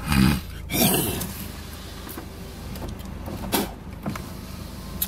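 Low steady hum inside a car, with two loud rustling bumps in the first second and a sharp click about three and a half seconds in.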